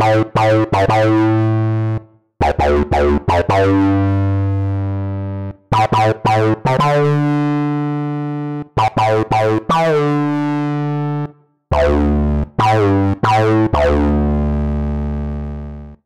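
Native Instruments Massive X software synthesizer playing its 'Creak Bass' preset. A bass phrase repeats five times with short gaps between: a quick run of short, sharp-edged notes landing on a held low note that dies away.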